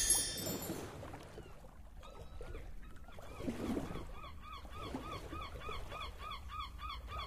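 Quiet game audio from the Big Bass Christmas Bash online slot on its free-spins award screen. A loud win jingle fades out in the first second. From about halfway on, a soft short tone that rises and falls repeats about three times a second over a faint low rumble.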